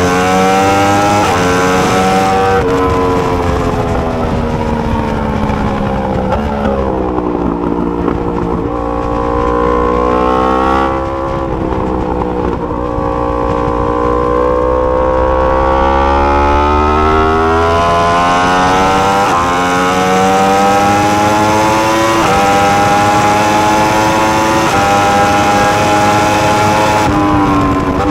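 2020 Yamaha R1M's crossplane inline-four engine at racing speed, heard on board. The revs climb and fall over and over as it is shifted through the gears and eased for corners. There is a quieter stretch a little before the middle.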